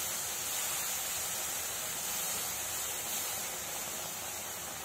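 Sugar syrup sizzling and bubbling on gram flour roasted in ghee, the moment after the syrup is poured in, while the mixture is stirred quickly. A steady hiss that slowly dies down.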